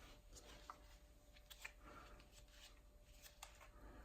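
Near silence, with a few faint light ticks and rustles of hands pressing adhesive tape down.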